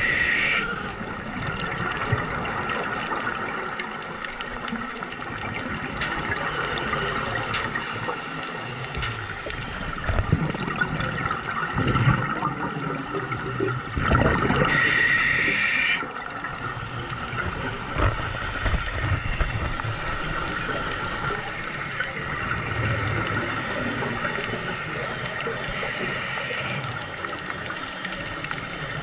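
Underwater ambience from a scuba dive: a steady hiss and low rumble of water against the camera. Scuba regulator exhaust bubbles gurgle out in three bursts, near the start, for about two seconds around the middle, and briefly near the end.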